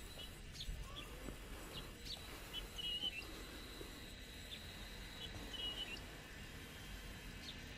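Insects droning at a steady high pitch, with short bird chirps repeating every second or so.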